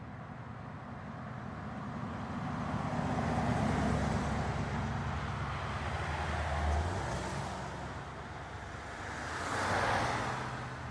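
Car engine humming with road noise. It grows louder a few seconds in, and a short rushing swell comes near the end.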